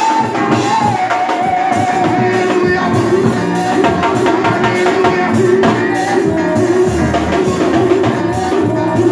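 Live gospel worship music: singing over a drum kit and band with a steady beat.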